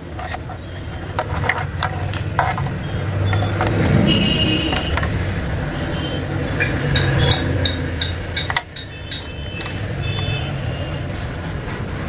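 Vehicle traffic: a motor vehicle engine running with a steady low rumble, several short high beeps and scattered light clicks.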